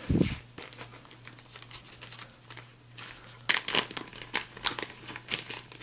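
A soft thump, then a clear plastic zip-top bag being handled and pulled open by hand, with a dense run of sharp crinkles and crackles from about three and a half seconds in.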